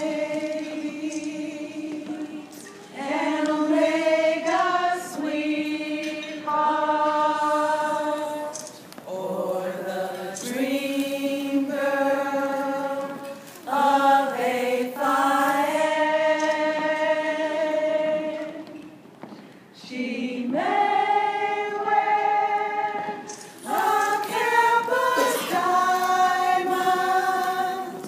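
A group of voices singing together, in long held notes, phrase after phrase with short breaks between them.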